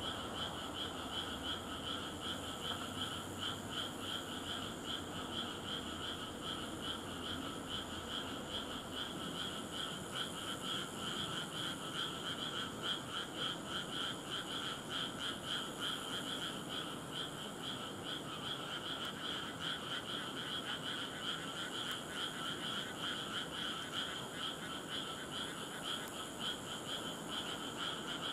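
A steady chorus of frogs calling: many overlapping, rapidly repeated calls that run on without a break.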